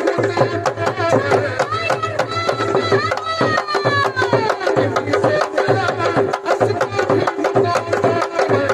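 Live Indian instrumental music: hand drums such as tabla keep a steady beat under a bending melody played over a held drone note, with a falling glide about three seconds in.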